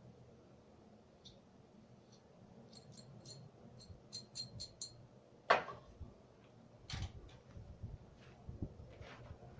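Light clicks and taps of small metal parts being handled, a quick run of them, then a sharper knock about halfway through and another about a second later.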